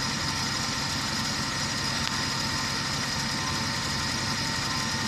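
Steady mechanical hum of an engine or motor running, even throughout with a few constant tones.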